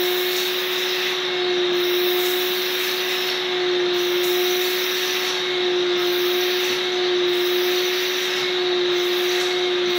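Curtain-cleaning machine's suction motor running with a steady whine and airy hiss as the upholstery tool is drawn over the curtain. The hiss dips and returns about every second and a half as the tool moves across the fabric.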